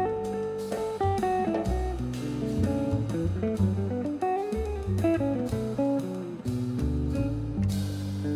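Background music: guitar-led instrumental with plucked notes over a steady drum beat.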